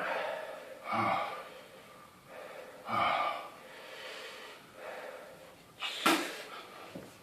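A person breathing hard in and out through the mouth, gasping against the burn of a superhot chilli in the mouth. Several heavy breaths come a second or two apart, with a sharper, louder gasp about six seconds in.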